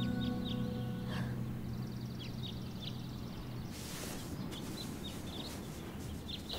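Small birds chirping in the background: short, high, falling chirps that repeat irregularly, over a faint steady hiss, as the held notes of the music die away in the first second. A brief burst of hiss comes about four seconds in.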